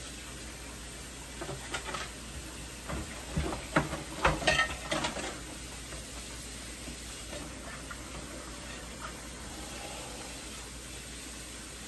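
Dishes being washed by hand at a kitchen sink: clinks and clatters of dishes and utensils being handled, a quick run of them in the first half, then only a few light knocks.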